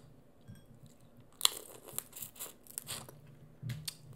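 Close-miked crunching and crackling of crawfish being eaten: a sharp crack about a second and a half in, a quick run of crackles after it, and another crunch near the end.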